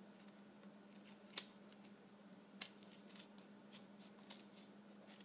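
Hand scissors cutting around the edge of felt: a few quiet, separate snips spread about half a second to a second apart. A faint steady hum runs underneath.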